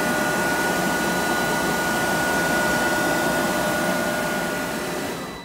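Freshly replaced heater blower fan on a 2004 Thomas school bus running after being switched on for a test: a steady rush of air with a thin steady motor whine. It fades away near the end.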